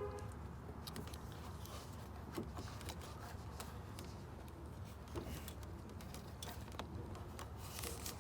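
Faint scattered light clicks and taps of hands working on car parts, over a low steady background rumble.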